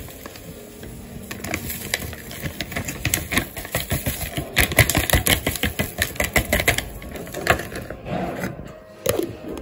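Powdered laundry detergent pouring into a glass jar: a dense patter of tiny ticks from the granules, thickest around halfway through and thinning out near the end, with a couple of separate knocks at the close.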